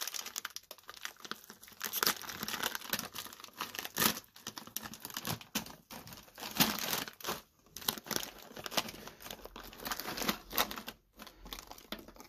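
Thin plastic cereal bag crinkling and crackling as hands pull it open and handle it. The sound comes in irregular bursts, with a brief pause near the end.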